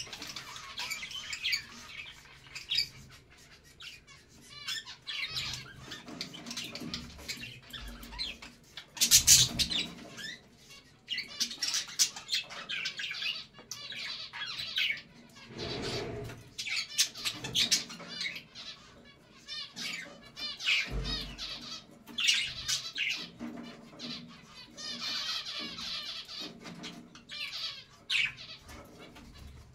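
Budgerigars chattering and warbling in bursts of fast, wavering high-pitched calls, with one loud harsh squawk about nine seconds in. A few low thumps come through underneath.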